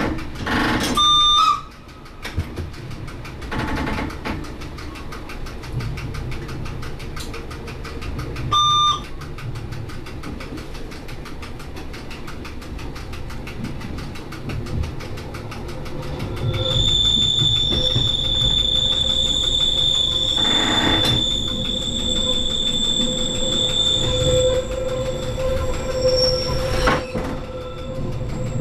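Metre-gauge electric railcar running downhill, heard from the cab: a steady rumble of wheels on track, with two short high tones early on. From a little past halfway the wheels squeal with a steady high tone on a curve, with a brief clatter in the middle of the squeal.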